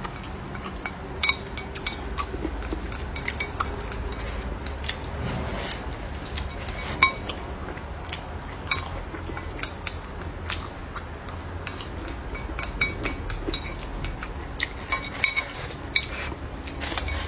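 Wooden chopsticks clicking and scraping against a ceramic bowl in irregular sharp clinks while the last of the rice and sauce is scooped up.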